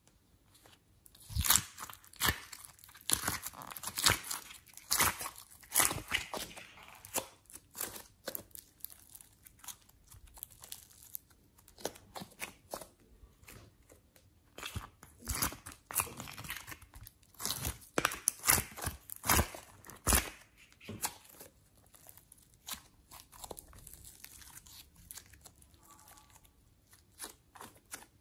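Hands squeezing, pulling and pressing slime and clay, giving irregular runs of sharp crackles and sticky pops, busiest in two stretches near the start and in the middle.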